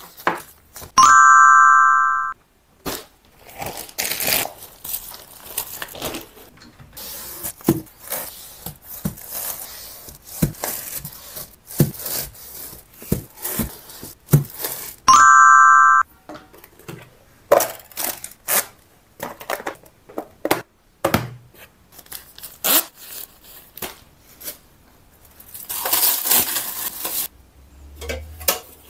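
A bright chime sound effect rings twice, about a second in and again about 15 seconds in. Between the chimes comes the rustling, crinkling and soft knocking of plastic-wrapped facial tissue packs and toilet paper rolls being handled and stacked on a shelf.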